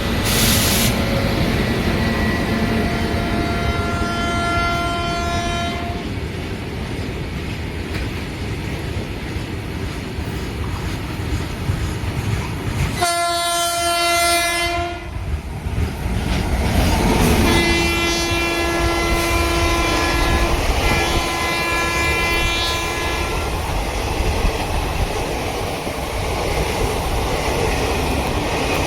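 Indian Railways train passing at speed: a loud steady rumble with wheels on the rails, and the locomotive horn sounding several times: one held blast near the start, a short higher blast near the middle, then two longer, lower blasts in quick succession.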